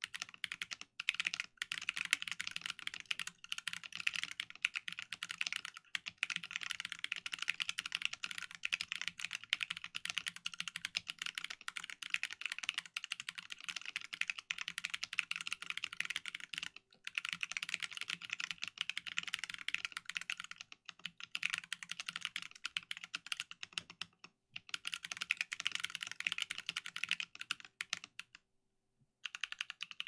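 Fast typing on a compact mechanical keyboard, the Space Space, at about 100 words a minute: a dense run of key clacks, broken by a few short pauses and a stop of about a second near the end.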